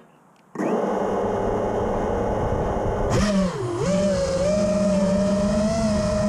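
Brushless motors of an FPV racing quadcopter start spinning about half a second in. About three seconds in they throttle up with a rush of air noise, and the motor whine dips in pitch briefly once before holding steady.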